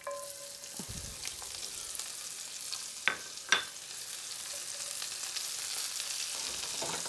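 Sliced shallots sizzling in hot olive oil in a cast-iron skillet, the sizzle starting at once and building steadily. Two sharp clinks come about three seconds in.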